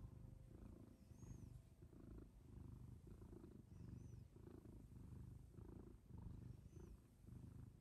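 Tabby cat purring softly while being stroked. The low purr swells and fades in a steady rhythm, about once a second, with each breath.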